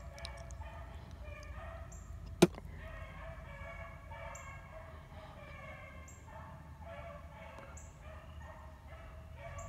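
Hunting dogs baying on a rabbit's trail in the distance: a faint chorus of long, overlapping cries, a sign the pack is running the scent. A single sharp click about two and a half seconds in.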